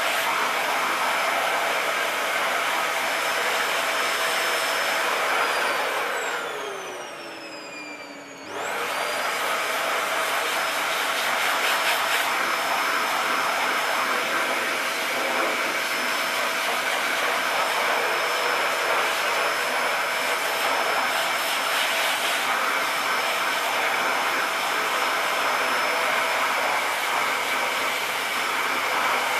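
Vacuum cleaner motor running with a steady whine. About six seconds in it is switched off and winds down, falling in pitch; a couple of seconds later it is switched back on abruptly and runs steadily again.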